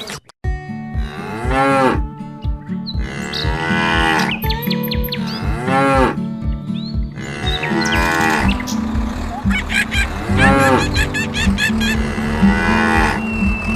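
Cartoon cow mooing, about six separate calls, each rising then falling in pitch, over background music with a regular low pulse.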